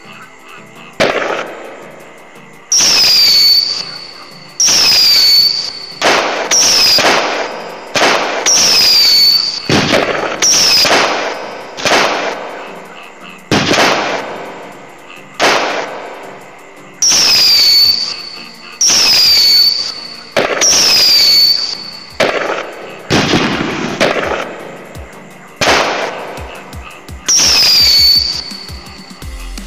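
Firework sound effects from an LED firework light's sound circuit: a series of bangs about every one to two seconds, many led in by a short falling whistle, each ending in a crackle that dies away.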